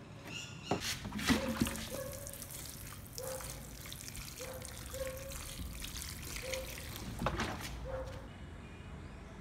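Water trickling out through the small holes punched in the cap of a plastic cooking-oil bottle used as a homemade watering can, with several short low notes and a few knocks along the way.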